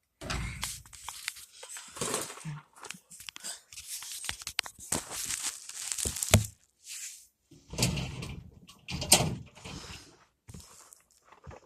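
Handling noises at a metal filing cabinet: irregular scraping and rustling with small clicks and several knocks, the loudest about six and nine seconds in.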